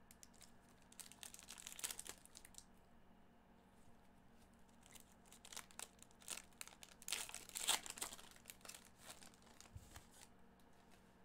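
Plastic wrapper of a Panini Prizm football card pack being torn open and crinkled by gloved hands: a short spell of crinkling about a second in, then a longer, louder spell of tearing and crinkling from about five seconds in.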